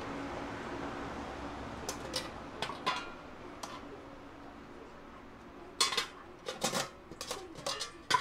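Dishes and metal utensils clinking and clattering. A few light clinks come about two to four seconds in, then a busier run of clatter near the end, over a steady background hiss that fades in the first few seconds.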